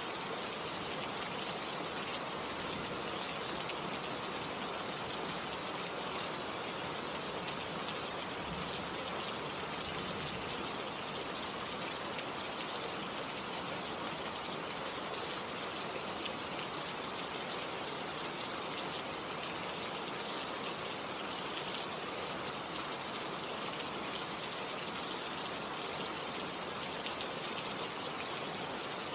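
Steady rain falling: a dense, even hiss of drops with a gushing, water-running quality, unchanging throughout.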